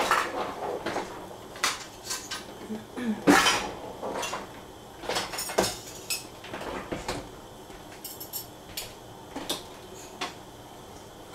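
Kitchen utensil clatter: scattered clinks and knocks of dishes, cutlery and a cupboard being handled. The loudest knock comes about three seconds in.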